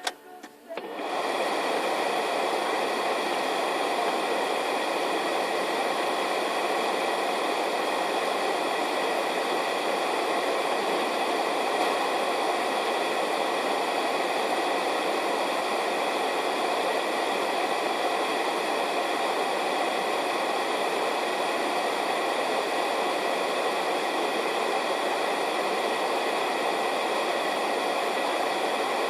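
A loud, steady, even hiss that starts about a second in and holds unchanged, with no pops or bangs in it.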